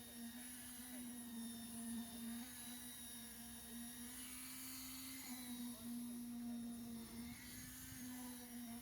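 A construction machine's motor running steadily with a constant, even hum that does not change in pitch.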